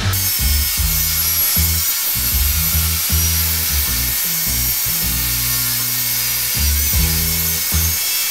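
Table saw running and ripping long wooden strips along the fence, a steady, even cutting noise that starts abruptly and stops near the end. Background music plays under it.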